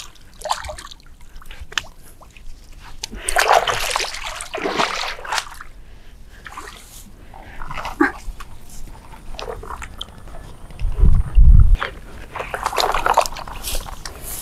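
Shallow river water splashing and sloshing as a person wades through it in a couple of bursts, with a short heavy low thump about eleven seconds in.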